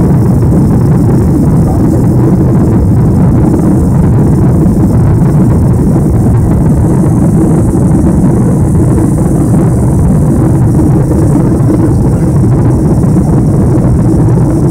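Steady low engine and airflow noise inside the cabin of a Boeing 747, from the four-engine jet's turbofans during the climb after takeoff.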